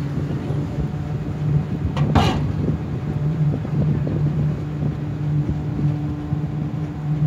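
Ferry's engine running steadily under way, a low even hum, with a short sharp noise about two seconds in.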